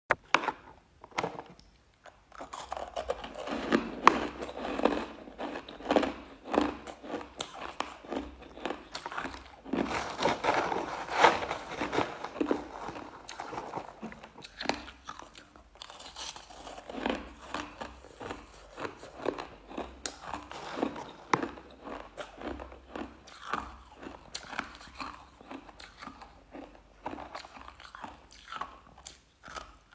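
Close-up crunching and chewing of crushed ice, a quick, irregular run of sharp crunches as mouthfuls of ice are bitten and ground between the teeth.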